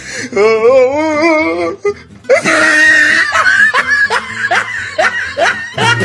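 Added cartoon sound effects: a bleat-like animal cry with a wobbling pitch for about a second and a half, then about two seconds in, a stretch of cartoon laughter with music.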